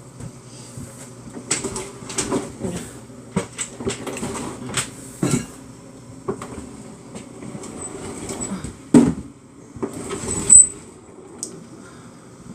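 A refrigerator being shoved back into its spot, rumbling and scraping across the floor with irregular knocks and bumps; the two loudest knocks come about nine and ten and a half seconds in. A low steady hum runs underneath.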